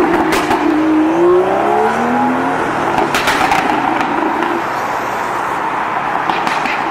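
BMW M2 accelerating away, its engine note rising over the first couple of seconds, then steady city traffic noise with a few brief clicks.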